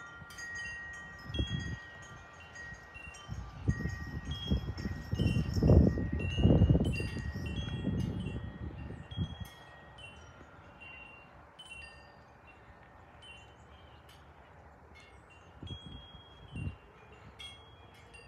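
Wind chimes ringing, several different tones struck one after another and lingering. Gusts of wind buffet the microphone through the first half, then die down.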